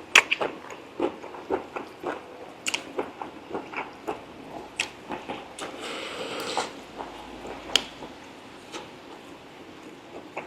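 Close-up chewing and biting of braised pork leg: irregular wet mouth smacks and clicks several times a second, with a short hiss-like noise about six seconds in.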